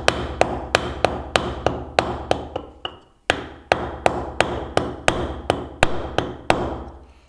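Hammer blows on a piece of wood, driving the tight-fitting outer barrel of a Novritsch SSX23 airsoft pistol into place, about three sharp blows a second with a short pause about three seconds in. The barrel sits very tight ('richtig spack'), so it has to be knocked home.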